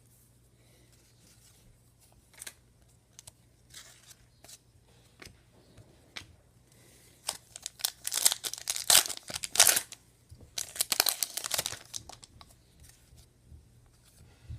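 Trading cards and their wrapping being handled: scattered light clicks, then two spells of louder crinkling and tearing noise in the second half.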